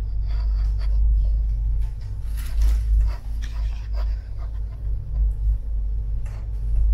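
Low, uneven rumble of a moving passenger cabin, with scattered light clicks and rattles and a brief louder noisy patch about two and a half seconds in.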